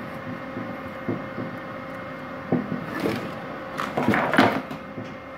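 A 15 kg plastic spool of MIG welding wire being pushed onto the welder's spool spindle: scattered knocks and scrapes of plastic against the hub and sheet-metal housing, busiest and loudest about four seconds in. A steady hum runs underneath.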